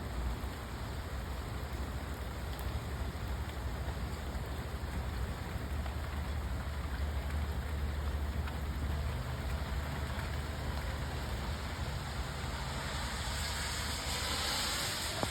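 Light, gentle rain falling steadily, an even soft hiss with a low rumble underneath. A brighter hiss swells near the end.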